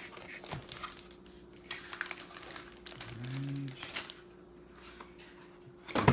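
Cardboard and plastic packaging being handled and rummaged through, with scattered light rustles and clicks. A short hummed voice sound about three seconds in and a sharper knock at the very end.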